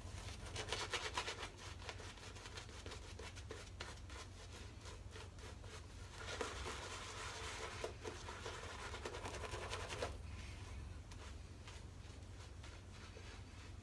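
Wolf Whiskers two-band badger shaving brush working lather onto the face: soft, quick scratchy rubbing of the bristles. The brushing is busier at the start and again from about six to ten seconds in.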